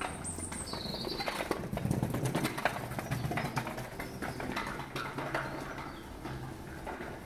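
Footsteps on brick paving with general street ambience, and two short high bird chirps in the first second and a half.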